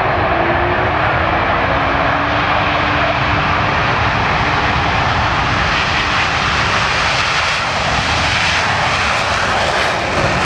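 Four U.S. Navy F/A-18 Hornet jets of the Blue Angels Diamond taking off in afterburner: a loud, steady jet roar, with a few falling whines in the first few seconds as they pass.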